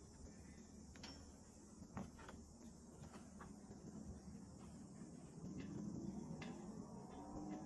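Faint, steady high-pitched chorus of forest insects, with a few light ticks scattered through it.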